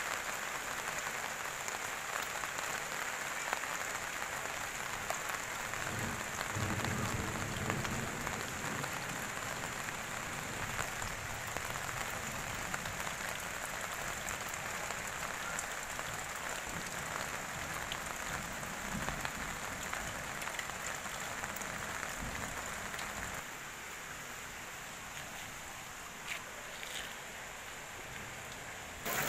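Steady rain falling through trees and foliage, an even hiss with no pauses, a little quieter for the last several seconds.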